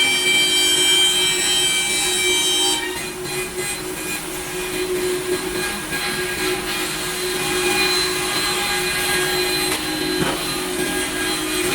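Five-axis twin-head CNC router machining curved wooden parts: steady, high spindle whine over continuous cutting noise, the tones shifting about three seconds in.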